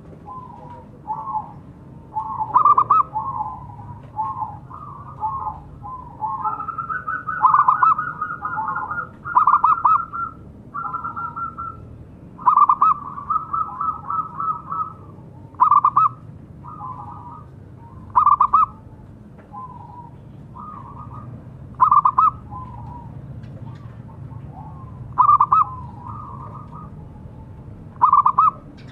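Zebra dove (perkutut) cooing: short bursts of rapid staccato notes repeated every few seconds, with longer, higher trilled runs about a third of the way through.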